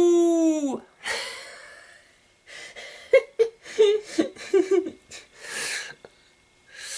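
The end of a man's wolf-like howl, sliding slowly down in pitch and then dropping away less than a second in. Then a sharp breath and a few seconds of broken, breathy laughter.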